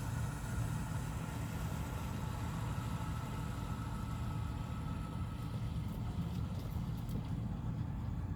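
Motor vehicle running with a steady low rumble, with a faint thin tone above it that slowly drops in pitch and fades out about seven seconds in.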